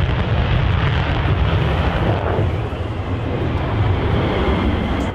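F-15 fighter's twin afterburning jet engines at full power on takeoff, a loud steady rumble and rush that eases slightly near the end.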